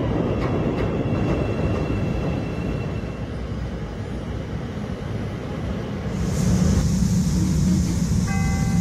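Chicago 'L' rapid-transit train rumbling along as it pulls into a station. About six seconds in, a steady hiss and a heavier low hum join, and a chime tone starts right at the end.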